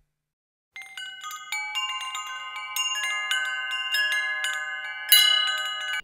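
Bell-like chimes: many quick struck notes, each ringing on and overlapping the next, starting about a second in, with a louder, brighter strike near the end.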